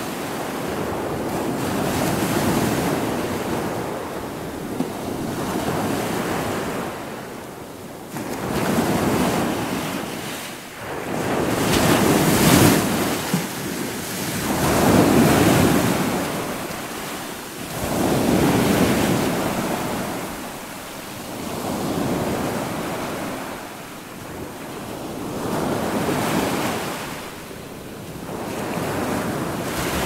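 Small surf waves breaking and washing up a sandy beach. The rushing, hissing water swells and fades every three to four seconds, loudest about halfway through.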